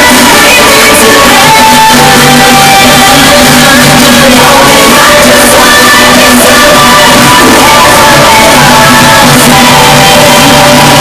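Very loud music with singing, played over a truck-mounted sound system, with shouting voices mixed in.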